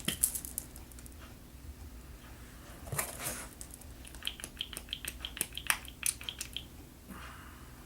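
Light clicks, taps and handling noise from a plastic liquid-foundation bottle being handled and opened. A few clicks come near the start, a soft burst about three seconds in, then a quick run of light clicks.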